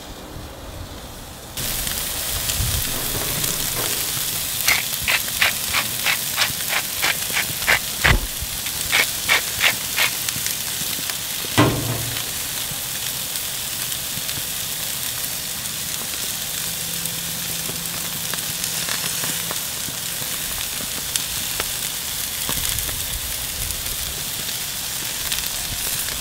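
Thin raw ribeye steaks sizzling on a hot grill grate, a steady hiss that starts about a second and a half in. From about four to ten seconds a run of sharp clicks comes about three times a second, and a single louder clack with a low thump falls near the middle.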